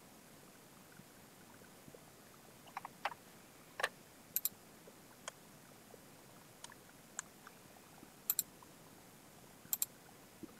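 About a dozen sharp clicks scattered irregularly over a faint hiss, several of them in quick pairs.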